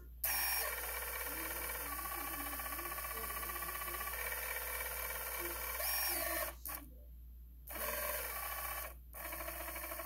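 T-Motor brushless drone motor spinning steadily for about six seconds with a buzzing, ringing hum, then cutting out and running again in two shorter spells. The running sounds rough, which the owner puts down to bad bearings in the new motor.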